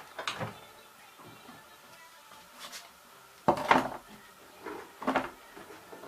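ELIN A 100 E washing machine working, with irregular swishing thumps every second or two, typical of the wash tumbling in the drum.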